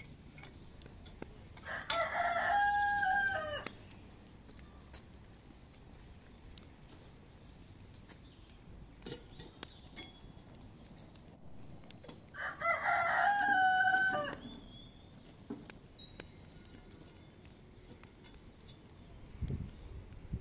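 Rooster crowing twice, about ten seconds apart, each crow lasting about two seconds.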